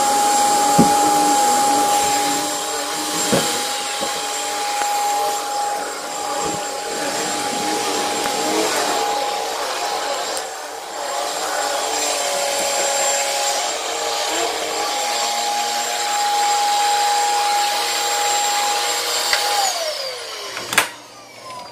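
Commercial vacuum cleaner running on carpet with a steady high whine and a few knocks from the nozzle. Near the end the motor is switched off and its whine falls in pitch as it winds down, followed by a sharp click.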